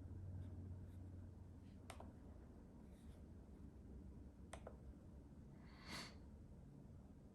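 Near silence: room tone with a few faint clicks, two of them sharper about two and four and a half seconds in, and a brief soft hiss near the end.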